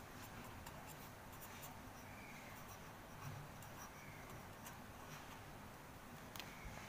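Felt-tip marker writing on ruled notebook paper: faint scratching strokes with a few small ticks.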